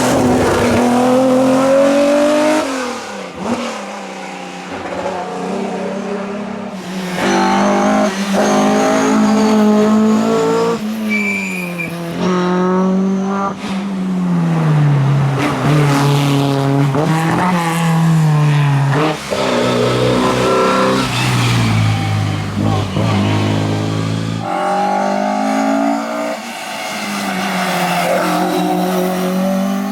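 Classic racing car engines revved hard as several cars accelerate and brake one after another, the pitch climbing through each gear and dropping at every shift or lift-off.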